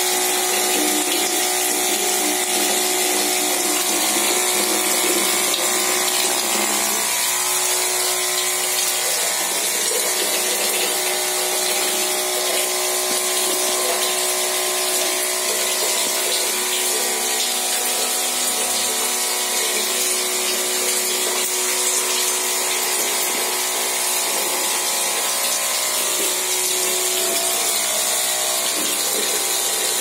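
Small 12 V DC water booster pump running with a steady hum, and water pouring from the tap and splashing into a tub.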